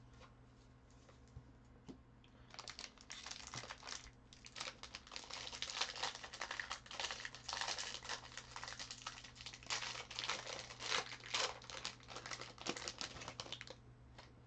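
Foil trading-card pack wrapper crinkling and crackling as a pack is handled and opened, a dense run of crackles starting about two and a half seconds in and stopping shortly before the end.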